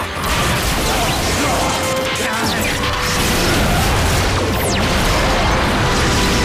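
Television action-scene soundtrack: dramatic music under crashing explosion and impact sound effects, with a sharp falling whoosh about four and a half seconds in.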